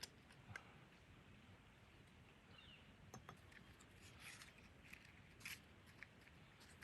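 Near silence with faint, scattered clicks and ticks over a low hiss.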